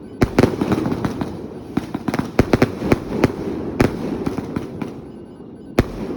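Fireworks going off: rapid clusters of sharp bangs near the start and again around the middle, with a steady crackle between them and a single louder bang near the end.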